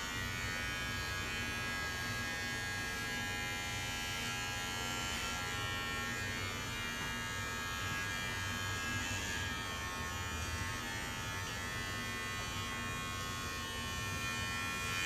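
Electric hair clippers running with a steady buzz while cutting short hair.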